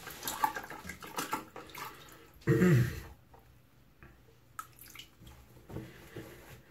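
Water splashing and dripping in a bathroom sink in short spells, with one louder, lower sound about two and a half seconds in.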